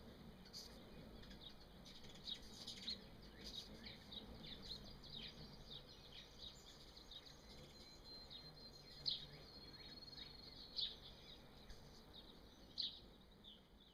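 Faint birds chirping: many quick, high calls scattered throughout, a few louder ones standing out, with a thin steady high note in the middle.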